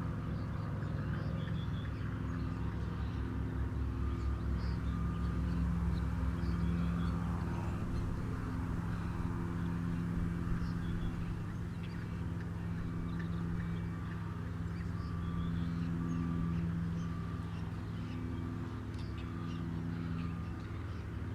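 A steady low droning hum made of several even tones, with faint short bird calls and peeps scattered over it.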